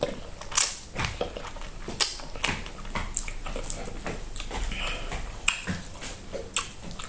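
A person chewing creamy mushroom and bacon pasta close to the microphone, with wet mouth smacks and clicks at irregular intervals.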